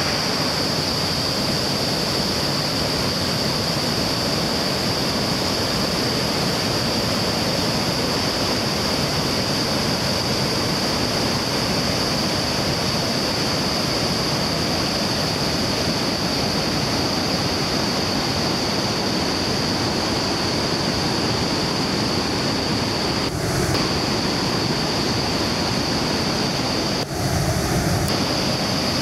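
The Iguazu Falls' cascades: a steady, loud rush of falling water, with a steady high hiss over it.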